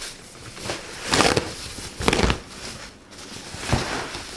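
Plastic packaging sheet being pulled off an electronic keyboard, crinkling and rustling in several short bursts.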